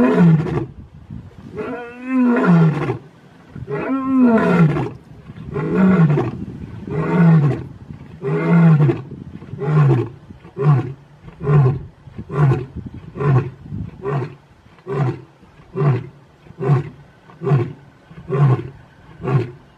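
Adult male lion roaring: a few long, full roars falling in pitch in the first several seconds, then a long run of short grunting roars, a little more than one a second, each shorter than the last, as the roaring bout winds down.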